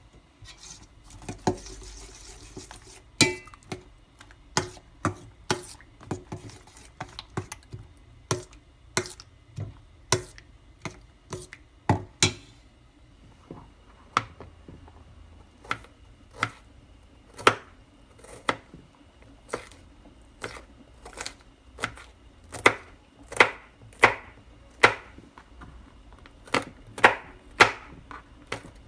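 Kitchen knife chopping garlic cloves on a plastic cutting board: a string of sharp single knocks, about one or two a second, louder in the second half.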